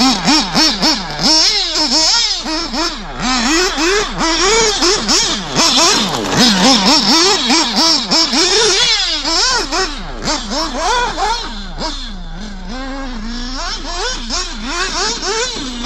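Nitro RC buggy's FX two-stroke glow engine revving hard, its pitch rising and falling in quick swoops about twice a second as the throttle is blipped. Near the end it settles briefly into a steadier, lower drone, then the revving starts again.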